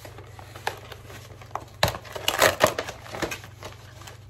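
Packaging being handled and crinkled by hand: scattered sharp crackles, with the loudest burst of crinkling about two and a half seconds in.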